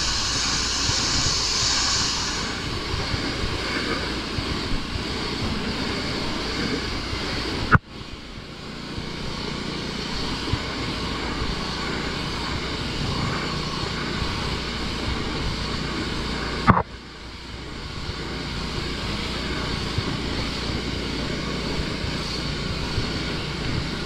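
Pressure washer running steadily while its wand sprays water onto wooden deck boards, a hiss of spray over a steady motor drone. Twice, about a third and two thirds of the way through, a sharp click is followed by a brief drop in level that builds back up.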